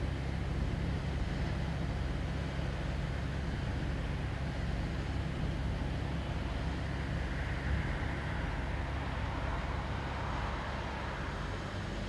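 Inland cargo vessel passing on the river: a steady low diesel engine drone, with the wash of its bow wave over it.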